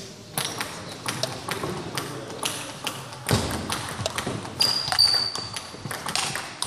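Table tennis rally: the ball clicking off the paddles and bouncing on the table in a quick irregular series of sharp hits. A short high squeak sounds near the middle.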